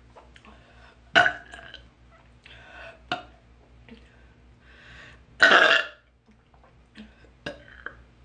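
A woman burping loudly twice: a short burp about a second in and a longer, louder one about five and a half seconds in, with fainter throat and mouth sounds between them.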